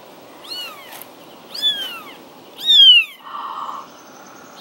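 Newborn kitten mewing: three high, thin cries about a second apart, each falling in pitch, the last the loudest.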